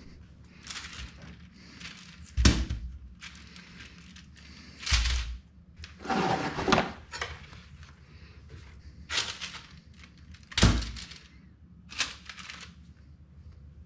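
Kitchen handling sounds: scissors snipping string off raw sausages, a paper towel torn from its roll about six seconds in, and several dull thumps and rustles in between.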